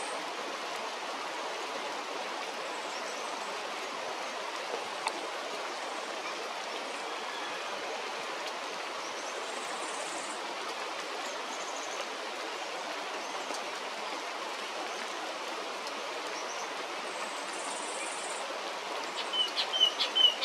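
Steady, even rushing noise, like running water. Near the end, a bird starts a run of short, quick calls that stand out above it.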